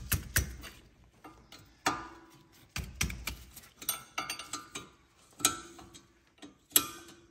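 A wrench on the 13 mm bolts of a wheel-bearing retaining plate, clicking and clinking against the metal as the bolts are loosened. The clicks are sharp and irregular, a few of them ringing briefly.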